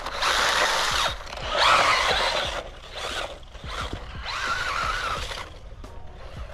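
Small 4000 kV brushless RC truck motor whining in repeated throttle bursts while its tyres spin and churn in soft sand, the first two surges the loudest. The truck has stopped in the soft sand and is bogged down, struggling to get moving again.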